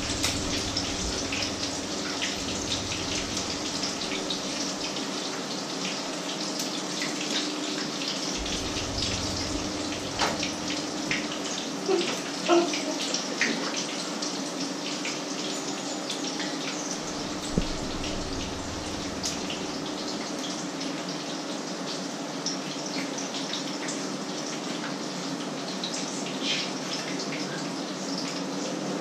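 Food sizzling and crackling in hot oil in frying pans, a steady hiss dotted with small pops, over a low steady hum. A few louder clinks about twelve seconds in.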